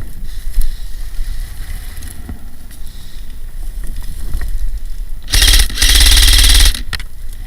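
Airsoft electric rifle, a CA SLR105 compact, firing full-auto near the microphone: a short burst, then a longer burst of about a second, about five seconds in. Before that, only faint rustling of movement.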